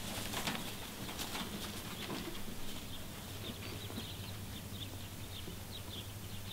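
Small birds chirping in an open orchard, with a low steady hum underneath and scattered light clicks and knocks in the first couple of seconds.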